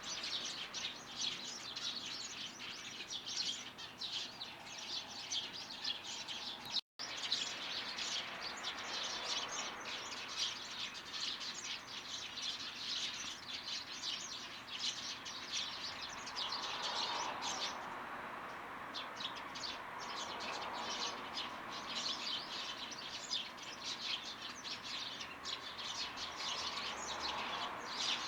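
Small garden songbirds chirping in quick, overlapping, high-pitched calls with no pause. The sound cuts out for an instant about seven seconds in.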